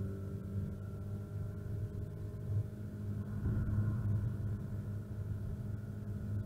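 Renault Clio RS R27's 2.0-litre four-cylinder engine pulling hard, heard from inside the cabin, holding almost the same pitch throughout, with a low road rumble beneath it.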